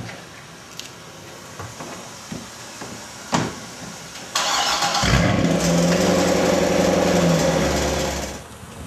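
A car door thumps shut, then a Chevrolet Corvette's V8 is cranked and fires up about a second later, running on in a loud, steady idle. The engine sound cuts off abruptly shortly before the end.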